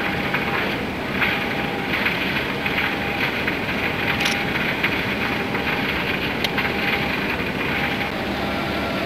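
Steady rushing noise of wind and water at sea, with a couple of faint clicks partway through.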